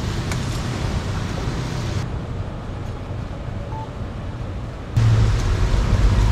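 Steady background noise of a busy fish stall with a low hum, changing suddenly about two seconds in and again near the end; no knife strokes stand out.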